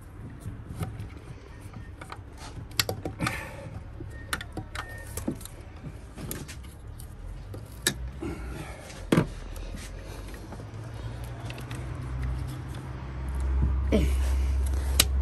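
Scattered clicks, taps and light metallic clinks of hands fitting parts and a wiring connector onto a car's ABS pump in the engine bay. A low steady rumble swells over the last few seconds.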